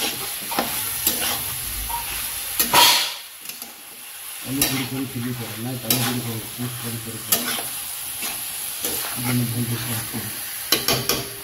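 Flat metal spatula stirring and scraping mushrooms frying in a metal kadhai, with the food sizzling and the spatula clicking against the pan. A low steady hum sits underneath from about four and a half seconds in.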